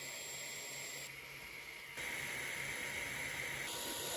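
Sovol SV01 Pro 3D printer running mid-print: a steady fan hiss, with a faint high whine that joins about two seconds in and stops shortly before the end.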